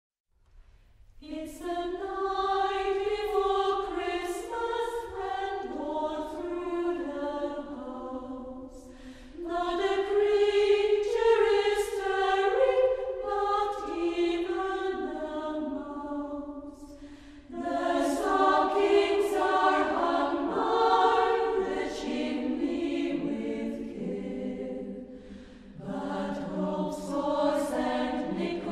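Mixed chamber choir of men's and women's voices singing, entering about a second in and moving in long phrases, each ending with a brief dip before the next begins.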